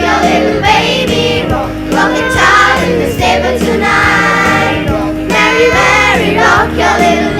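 Children's school choir singing together, with sustained low instrumental backing underneath.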